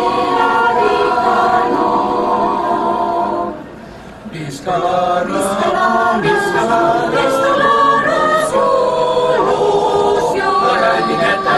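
Mixed choir of men's and women's voices singing unaccompanied, in held chords, with a short break about four seconds in before the singing resumes.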